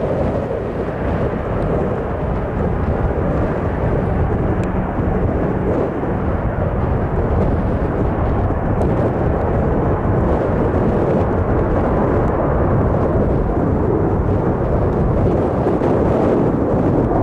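Boeing C-17A Globemaster III's four Pratt & Whitney F117 turbofan engines running as the jet taxis and turns on the runway: a loud, deep, steady jet noise that grows slightly louder toward the end.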